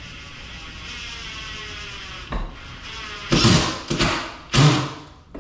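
A steady whirring for about two seconds, then a run of heavy knocks and thumps on wooden cabinetry, the loudest near the end, as kitchen cabinets are fitted in place.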